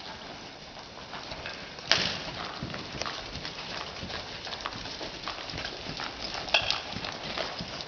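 Hoofbeats of a horse and a steer running on dirt arena footing, with a sharp knock about two seconds in and another about three-quarters of the way through.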